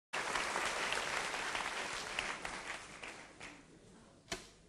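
Theatre audience applauding, the clapping dying away over the last couple of seconds. Near the end a single sharp knock as the wooden stepladder is set down on the stage.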